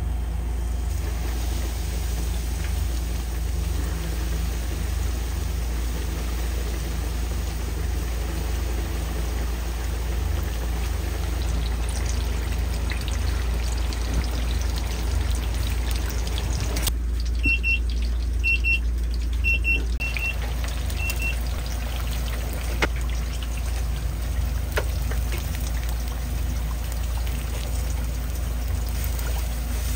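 Breaded cutlets deep-frying in hot oil: a steady bubbling hiss over a constant low machine hum. Around the middle there is a short run of about five high beeps.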